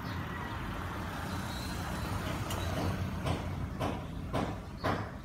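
Static hiss from a Hanrongda HRD-737 portable receiver's speaker as it is tuned across the VHF band between about 154 and 156 MHz, with several short bursts of noise in the second half.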